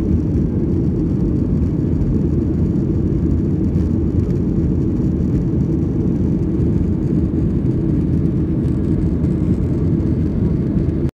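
Steady cabin noise inside a jet airliner in flight: the low, even rush of the engines and airflow. It cuts off suddenly at the very end.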